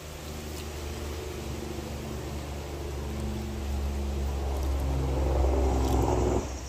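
A motor vehicle's engine running and growing louder as it draws nearer, then dropping away sharply near the end.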